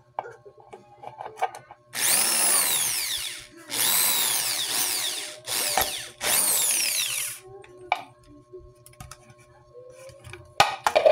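Corded electric drill with a twist bit boring through a thin plastic bottle, run in four trigger bursts with the motor speeding up and winding down each time; the third burst is very short. A few sharp clicks near the end.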